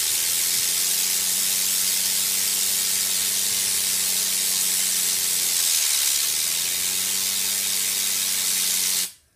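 Compressed air from an air compressor's nozzle hissing loudly and steadily as it blasts a handheld fidget spinner, driving it at high speed. A low hum runs beneath the hiss, sagging briefly about six seconds in and recovering, and the air cuts off suddenly about nine seconds in.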